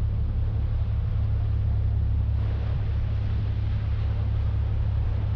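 Passenger ferry under way, its engine running with a steady low rumble.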